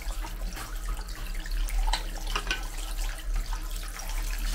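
Tap water running into a sink and splashing, pouring over a block of ice to thaw it.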